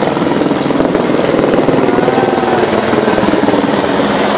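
Helicopter flying low overhead, its rotor giving a loud, rapid, steady beat.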